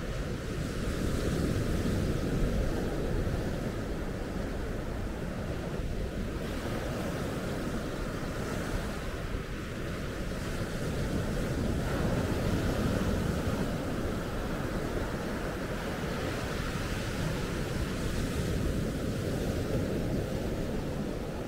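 Surf breaking and washing onto a sandy beach, a steady rushing that swells now and then, with wind buffeting the microphone.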